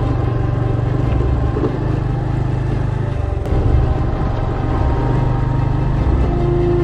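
Small motorbike engine running steadily while being ridden, a continuous low drone, with a steady higher tone joining about six seconds in.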